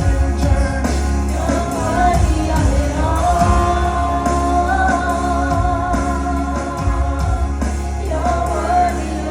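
Worship song: a singing voice holding one long, wavering note from about three seconds in to near the end, over band accompaniment with a steady bass.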